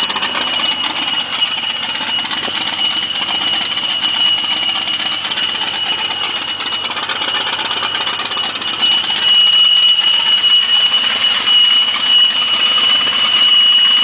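Turbocharged inline-six of a Chevrolet Caravan idling steadily, with a steady high-pitched whine over it; the sound gets a little louder about two-thirds of the way through.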